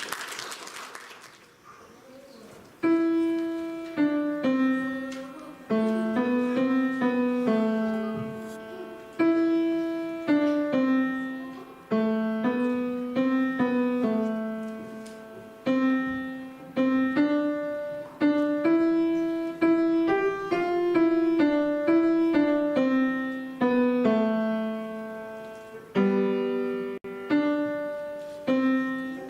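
A piano playing a slow melody with chords, each note struck and then fading, starting about three seconds in after a brief noise.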